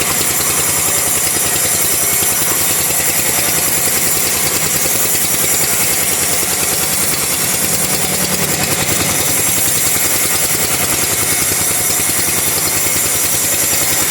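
Two-stroke chainsaw running steadily at high speed, cutting through a teak log.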